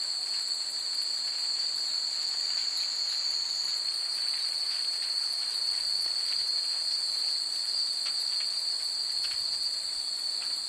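Steady high-pitched shrilling of night insects, with faint, scattered tinkles of wind chimes.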